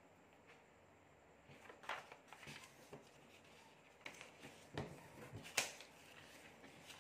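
A sheet of origami paper being folded and creased by hand: faint rustles and crinkles with scattered short crackles, the sharpest crisp snap of paper about five and a half seconds in.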